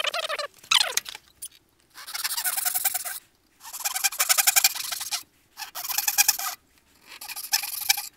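Dozuki, a Japanese pull saw, cutting dovetails in wood: four bursts of fast sawing strokes, each about a second long, with short pauses between.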